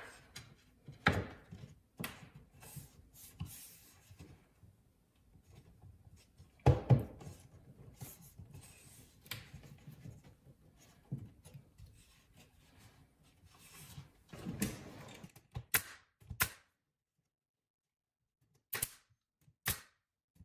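A wooden 1x4 trim board being handled and pressed into place against a cabinet: scattered knocks and rubbing of wood on wood, with the loudest knocks about a second in and about seven seconds in. Two sharp clicks come near the end.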